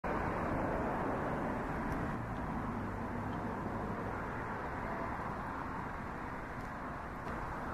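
Steady outdoor background noise: an even rumble and hiss with a faint low hum in the first few seconds.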